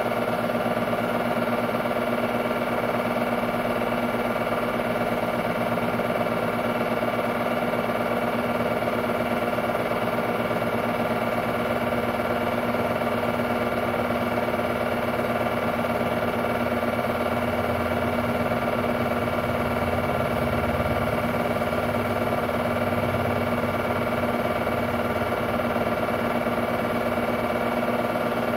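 Technicolor 810 8mm film-loop projector running: a steady mechanical hum and whirr from its motor and film transport.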